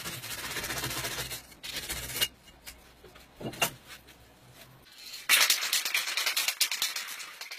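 Rubbing and scraping on a steel part held in a bench vise, in uneven stretches with short clicks between them. About five seconds in, a louder, steady hiss with a fine crackle starts.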